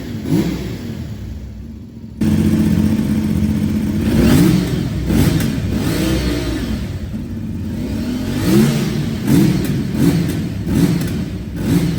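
CFMOTO 450MT's parallel-twin engine being blipped at standstill: a steady idle with quick revs that rise and fall, about eight of them. The engine gets suddenly louder about two seconds in.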